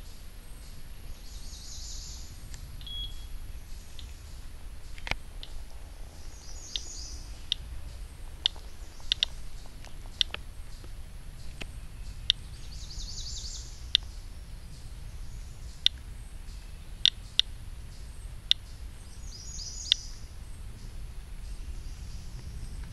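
Radiation Alert Inspector Geiger counter clicking at random, uneven intervals, roughly one click every second or two, each click one detected count. Birds sing short high trills a few times over a steady low outdoor rumble.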